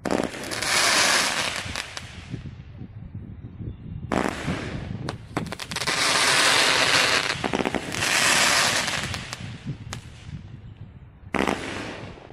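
30-shot Gender Reveal Smoke Cake firework firing its smoke comets in several volleys. Each volley is a run of sharp pops, each followed by a hiss lasting a second or two.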